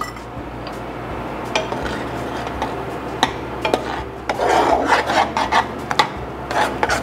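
Instant mashed potatoes being stirred into hot milk and butter in a pot: a utensil rubbing through the thickening mash with frequent clicks and knocks against the pot, busiest about four to five seconds in.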